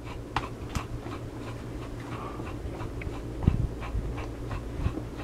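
Plastic Blu-ray cases being handled off camera, with a soft knock about three and a half seconds in, over faint, quick, evenly spaced ticks.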